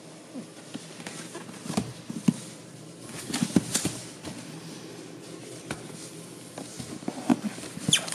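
A cardboard box being handled and turned over by hand, giving irregular knocks, scrapes and rustles of cardboard, busiest about halfway through.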